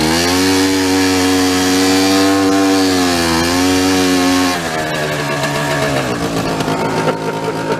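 Small engine of a utility cart under way: its pitch rises as it speeds up, holds with a brief dip, then drops as it eases off about four and a half seconds in.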